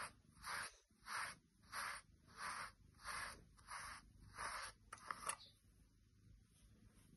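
A pin grooming brush raked through a cat's fur in steady strokes, about eight swishes at a pace of one and a half a second. The swishes stop about five seconds in and are followed by a few light clicks.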